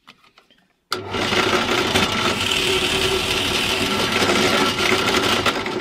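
Benchtop drill press (pillar drill) switching on about a second in and running with a steady hum and whine as its wood bit bores a shallow hole in a clamped scrap board; it begins to wind down at the very end.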